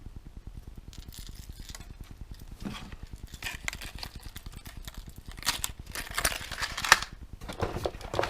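Rustling and crinkling of lure packaging being handled while unboxing tackle, with scattered light clicks. It gets busier and louder about two-thirds of the way in, with one sharp click.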